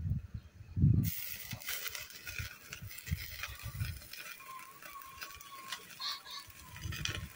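Hiss with crackling that starts abruptly about a second in, as the small kindling fire is doused with water. Gusts of wind rumble on the microphone at the start and near the end.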